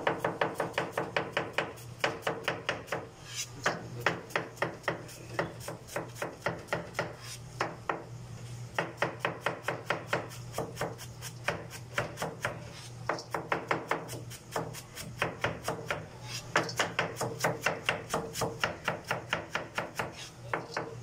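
Chef's knife rapidly shredding cabbage on a plastic cutting board: quick, even chopping strokes, about five a second, in runs broken by short pauses.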